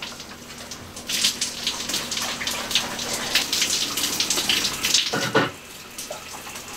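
Shower water spraying and splashing onto a person and the wet shower curtain. It starts about a second in, has a heavier splash about five seconds in, and then falls quieter.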